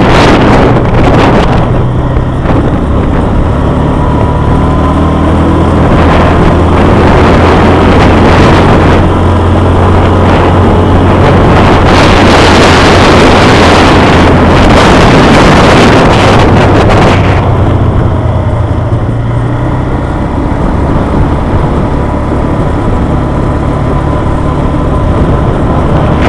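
Quad bike engine running at a steady cruising speed, with heavy wind buffeting the microphone, strongest about twelve to seventeen seconds in.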